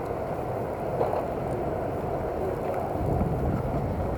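Wind buffeting the camera's microphone: a steady low rumbling noise.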